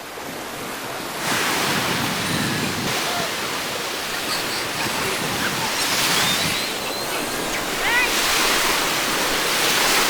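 Ocean waves breaking and washing up a beach, the surf noise surging in and out, with wind buffeting the microphone.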